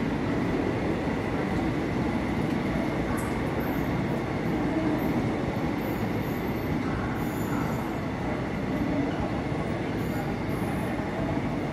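Coaches of the 02102 Manmad–CSMT Superfast Express rolling past at steady speed: a continuous rumble of wheels on the rails, with a few brief faint high squeals.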